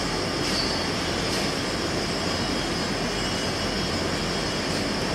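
Steady rushing whir of a running machine in a workshop.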